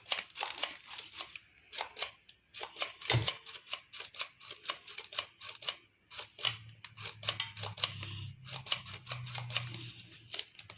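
Quick, irregular clicking and scraping of kitchen utensils while pancake ingredients are measured and added, with a low steady hum for a few seconds in the second half.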